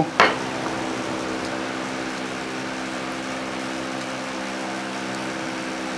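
Steady background hum of a running machine, a set of even, unchanging tones, with one short click just after the start.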